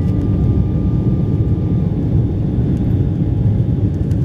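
Embraer 190 cabin noise during the climb after takeoff: a steady, dense low rumble of the jet engines and airflow. A faint, thin, high steady whine stops about two seconds in.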